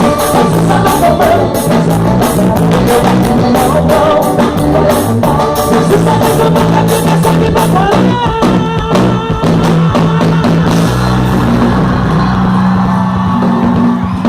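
Forró gospel band playing with drum kit and bass, the drums beating steadily until about eleven seconds in, when the band holds a final chord as the song ends.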